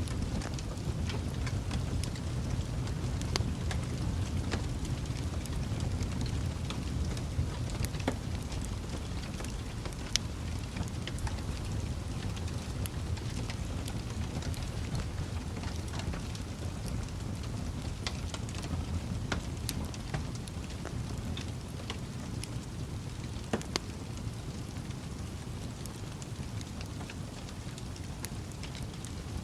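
Campfire crackling: scattered sharp pops and snaps, irregularly spaced, over a steady low rumble.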